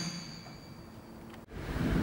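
Squealing wheels of a passing freight train of flat wagons fading quickly to quiet. About one and a half seconds in, a low steady rumble starts abruptly.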